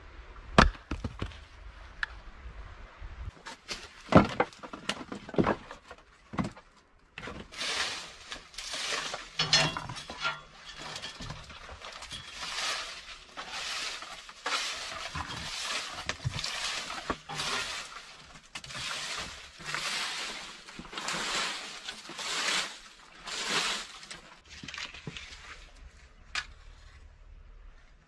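Hatchet splitting kindling on a wooden chopping block: a few sharp, separate chops in the first six seconds. Then a long run of scraping strokes, about one a second, as the hatchet shaves a stick into thin shavings and chips. A few light knocks of wood come near the end.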